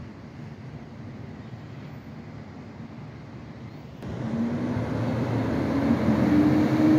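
Freightliner SD garbage truck's diesel engine, first a low steady rumble, then about four seconds in it revs up sharply and grows much louder, its tone rising.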